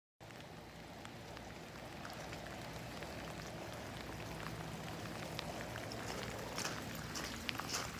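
Light rain falling, an even patter with scattered drips ticking that grow more frequent near the end, over a low steady hum.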